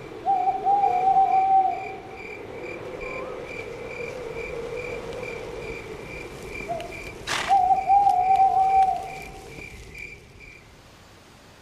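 Cartoon night ambience: crickets chirping in a steady pulse about twice a second over a low hum. Twice, a short note leads into a long wavering animal call of about a second and a half. The crickets stop near the end.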